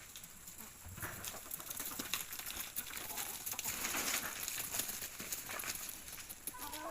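Free-range chickens calling softly over a rustling, scratching noise full of small clicks. The rustling sets in about a second in, and a short call comes near the end.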